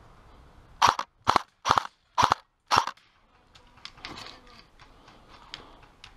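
Airsoft AK-74 replica rifle firing five single shots, about two a second, each a short sharp crack. Then softer rustling and clicking of footsteps through dry grass and brush as the player moves.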